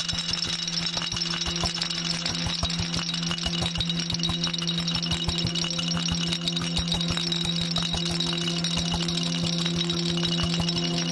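A hand rattle shaken quickly in a dense, even patter of clicks, over a steady drone of several held tones from looped, granular-sampled processing of the live playing.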